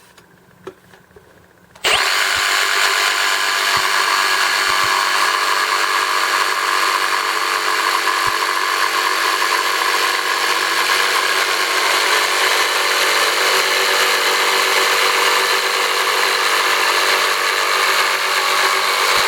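Kobalt 24-Volt Max brushless cordless jigsaw sawing through wood with the supplied blade and orbital action set to 0, a straight up-and-down stroke. It starts about two seconds in, runs steadily at speed, and stops suddenly at the end.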